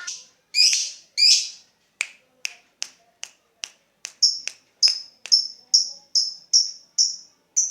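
Lovebird calling in its ticking 'ngetik' style, used to provoke other lovebirds into their long chattering 'ngekek' song: two harsh high calls, then a run of sharp ticks about two and a half a second, turning about four seconds in into repeated shrill chirps about twice a second.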